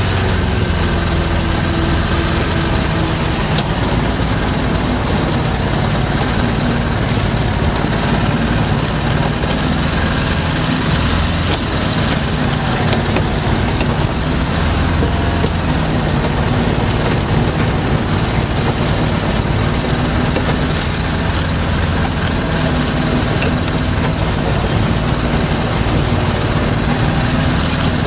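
Small off-road vehicle engine running steadily at a low, even speed, heard from on board while the vehicle drives slowly along a dirt trail.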